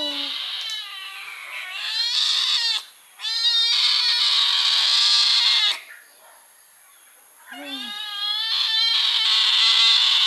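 Hungry kittens crying, many high-pitched meows overlapping in long bouts, with a brief lull about six seconds in.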